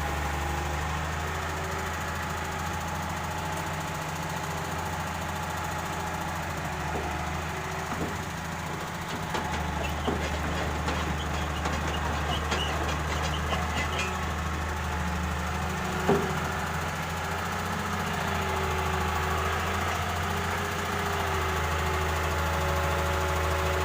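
Excavator's diesel engine running steadily with a low rumble. Partway through there is a few seconds of clattering, and a single sharp knock comes about two-thirds of the way in.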